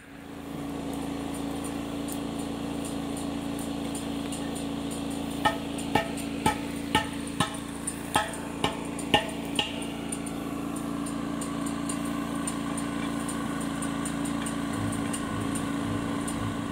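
An engine running steadily, and about halfway through roughly ten metallic hammer blows, about two a second, each ringing briefly, as a damaged steel wheel rim is worked on.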